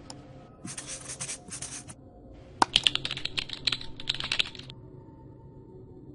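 Computer keyboard typing sound effect: a quick run of keystrokes lasting about two seconds, starting about two and a half seconds in, as a comment is typed out. Before it, about a second in, comes a short scratchy marker-writing sound.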